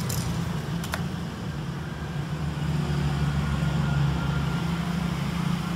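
Steady low mechanical hum, like a fan or motor running, with two light clicks in the first second.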